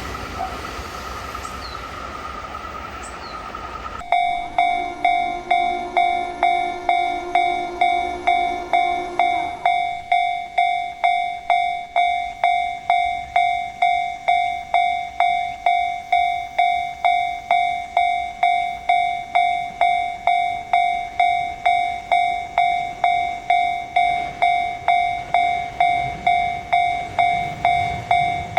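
Japanese level-crossing warning bell ringing its 'kan-kan' alarm, a single-pitched ding repeating about twice a second, each strike ringing on briefly. It starts abruptly about four seconds in, after a quieter stretch, and for its first few seconds a lower steady tone sounds along with it.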